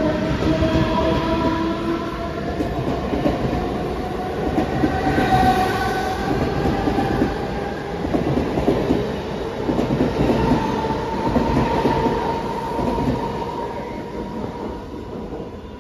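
Mumbai suburban EMU local train running past along the platform: a steady rumble and clatter of wheels on the rails with a whine above it, fading near the end as the last coach pulls away.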